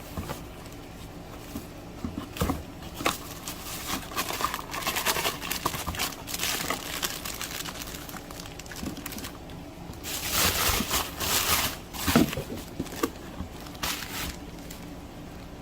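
Degreaser spray hissing onto the greasy timing-belt side of an engine in several bursts, the longest about two seconds, a little over halfway through.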